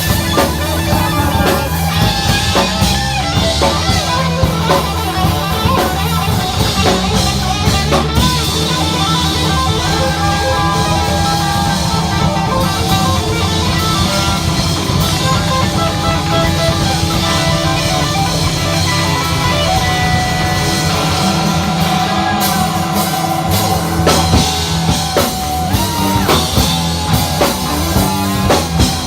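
Live funk-rock band playing: electric guitar over bass and a drum kit, at a steady loud level.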